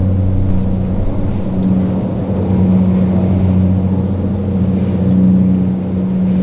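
Steady drone of an engine or machine running at a constant speed: a low hum that swells and eases slightly without changing pitch.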